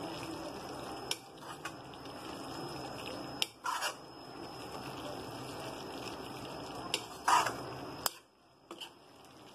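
A metal spoon stirring thick cluster-bean curry in a metal kadai, with a few clinks and scrapes against the pan over a steady low hiss.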